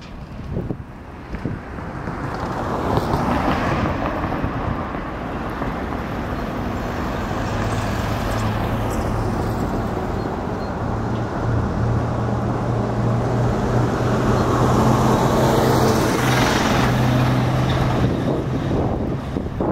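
Diesel engine of a Hyundai tracked excavator running under load as it works its hydraulic demolition arm, with a steady engine hum. Over it come surges of crunching and crashing as concrete walls are broken and fall.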